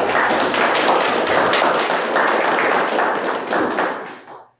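Audience applauding: a dense patter of many hands clapping that dies away near the end.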